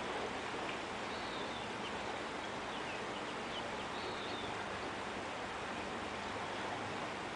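Steady rush of a flowing river, with a few faint short high bird chirps in the first half.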